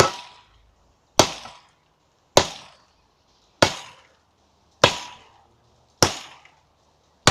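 Chopping blows against a tree trunk: a steady series of sharp strikes, about one every 1.2 seconds.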